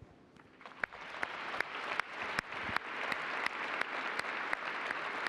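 Audience applauding, a dense patter of many hands that swells about a second in and then holds steady, with single louder claps standing out.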